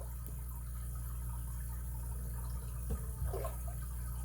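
Steady low background hum, with a few faint clicks and knocks from a brass padlock being handled, about three seconds in and again near the end.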